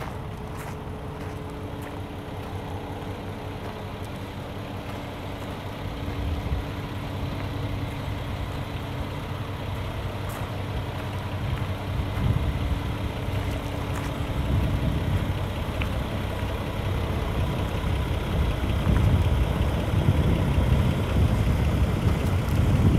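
Kenworth T800 day cab's Paccar MX-13 diesel engine idling steadily, getting louder toward the end.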